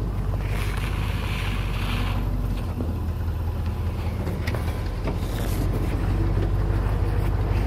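Truck engine running with a steady low rumble, with scattered clicks and rattles.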